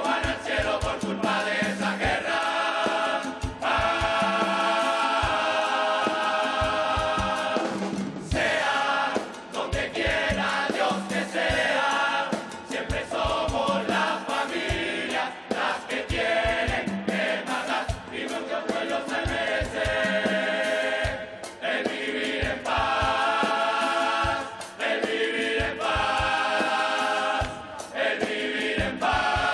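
A carnival murga chorus of many male voices singing together in phrases, over a regular bass drum beat.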